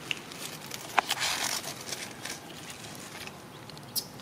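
Leaves and twigs of a tree rustling as long-tailed macaques clamber along a branch: a sharp snap about a second in, then a short burst of rustling, with a few lighter ticks around it.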